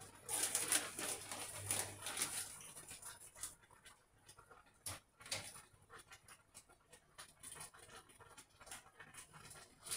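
Plastic bag of shredded cheese rustling and crinkling as it is handled, loudest in the first couple of seconds, then lighter scattered rustles and a few sharp clicks.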